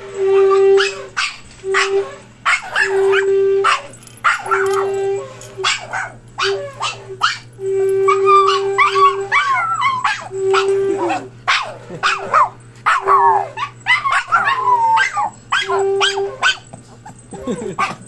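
Shofar sounding a series of steady blasts, some short and some held longer, while small dogs bark and howl along in answer to it.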